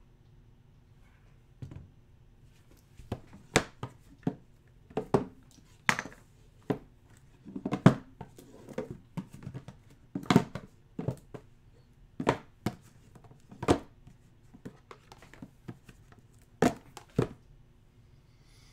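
Sealed, shrink-wrapped cardboard trading-card boxes being picked up, restacked and set down on a table, giving an irregular run of knocks and taps.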